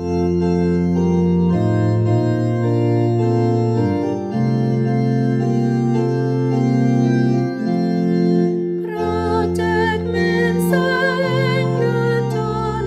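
Organ playing sustained chords as the introduction to a hymn, the chords changing every second or two. About nine seconds in, a higher melody line with vibrato joins.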